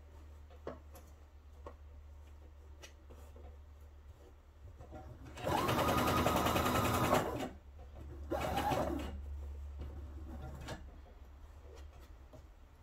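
Pfaff expression 3.5 sewing machine stitching in short runs: a fast burst of stitching about five seconds in lasting about two seconds, then a shorter run about three seconds later. It is sewing a narrow topstitch 2 mm from the fabric edge. A steady low hum runs underneath, with small clicks of fabric being handled before the stitching starts.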